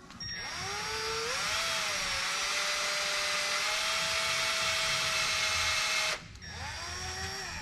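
Power drill boring into the crank hub and crankshaft nose of a BMW F80 M3's S55 engine, to pin the hub against spinning. The drill spins up with a rising whine, runs steadily for about six seconds and stops suddenly, then runs again in a short burst near the end.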